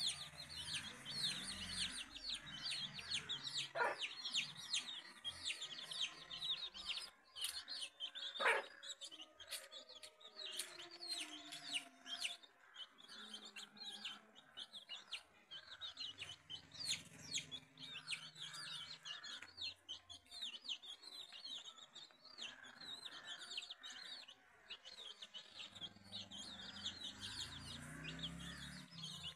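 A brood of chicks peeping without pause in quick, high cheeps, with a mother hen's low clucking rising at times underneath.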